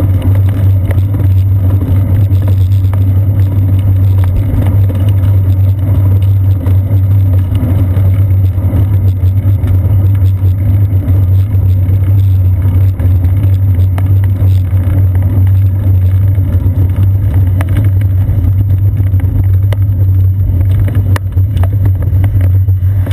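Loud, steady low rumble of a bicycle rolling over pavement, heard as road vibration and wind through a seat-post-mounted GoPro Hero 2 in its housing.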